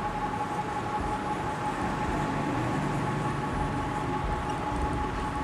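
Steady background hum and hiss with a faint, even high-pitched whine.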